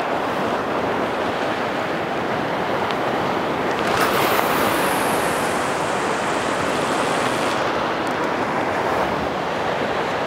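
Ocean surf washing against rocks below a cliff, a steady rushing noise, with a louder surge of breaking wave about four seconds in that lasts a few seconds.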